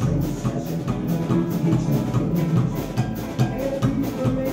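Live Americana band playing: drum kit with regular cymbal strokes and guitars, with clarinet, heard from on stage so the drums are loud and the vocals muffled.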